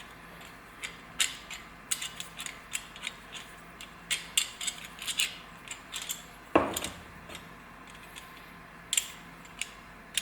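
Irregular light metal clicking and tapping from an emergency brake handle assembly being worked by hand while its chrome release button is threaded on, with a louder knock about six and a half seconds in.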